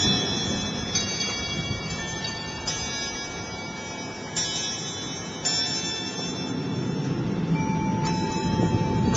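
Tubular wind chime rung by gusts: a new strike every second or two, its bright notes ringing on and overlapping, over a steady rush of wind.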